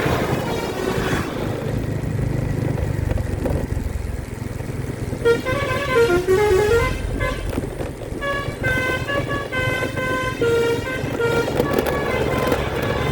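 Bus telolet horn playing a tune of short stepped notes, which start about five seconds in over the steady low rumble of the bus's engine and road noise.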